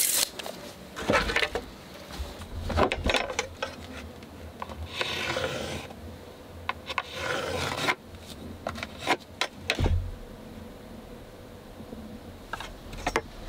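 Wooden floor boards being handled and laid down: scattered knocks and clatters of wood, with two longer scraping slides of board against board or stone in the middle.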